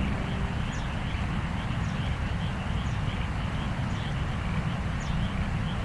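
The last note of the outdoor PA chime melody fades out in the first half-second. Then comes open-air ambience: a steady low rumble and hiss, with a short, high, slightly falling chirp repeating about once a second and fainter, quicker calls beneath it.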